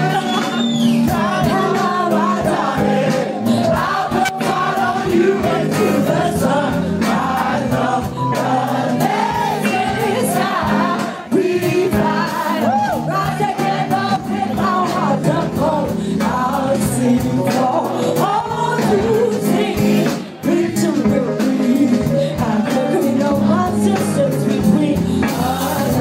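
Live band performing: a woman singing lead over electric guitar, bass and the rest of the band, heard from the crowd in a club.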